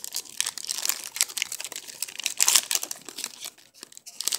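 Foil wrapper of a 2016 Donruss Optic football card pack being torn open and crinkled by hand: a dense crackling rustle, loudest about halfway through, thinning out near the end.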